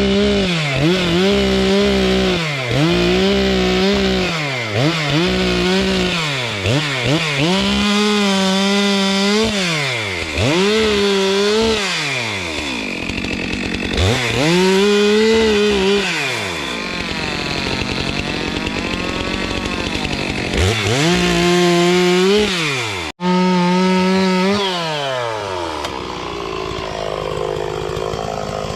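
Two-stroke chainsaw cutting blowdown timber, its engine revving up to full speed and dropping back again and again. The sound cuts out for an instant a little over twenty seconds in, then carries on at a lower, steadier pitch near the end.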